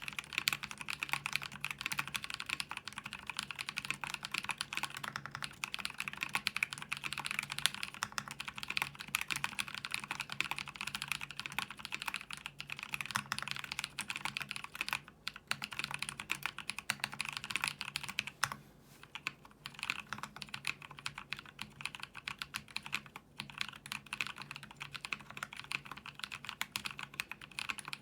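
Custom E8.5 mechanical keyboard typed on quickly and steadily: YOK Holy Panda tactile switches, lubed with Tribosys 3204, clacking under GMK keycaps on a PC plate, with short pauses about 15 and 18 seconds in.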